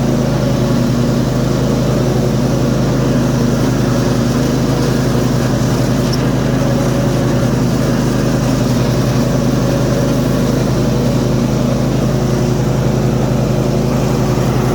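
Simplicity ZT1500 zero-turn riding mower's engine running steadily with the cutting deck's blades engaged, mowing grass.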